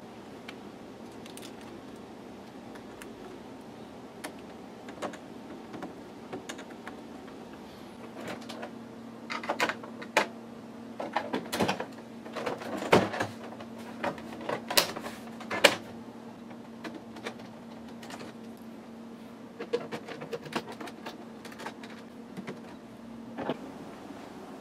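Plastic clicks and knocks from an HP Photosmart C5180 printer's outer casing as its side panel is fitted and snapped into place. A cluster of sharp clicks comes about halfway through, with a few lighter ones near the end.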